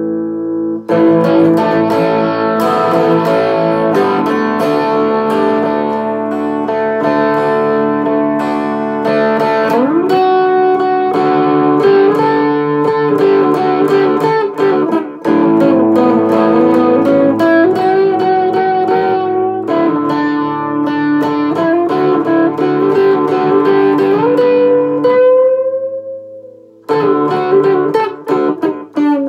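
Ibanez electric guitar playing a jazzy lead melody with string bends over steady sustained chords. Near the end a note is bent upward and held, fading out before the playing picks up again.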